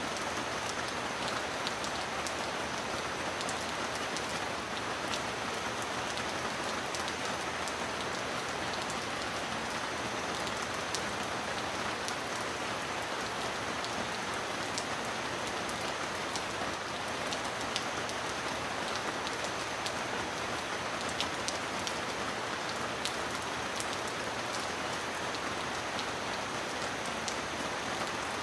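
Heavy rain falling steadily: an even hiss with scattered sharp ticks of single drops.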